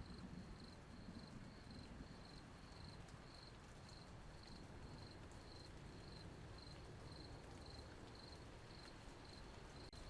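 Faint steady hiss of light rain with a cricket chirping evenly, about two chirps a second.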